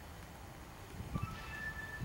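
Union Pacific freight train approaching slowly: a faint low rumble with a few soft clunks about a second in, and a faint steady high tone from a little past halfway.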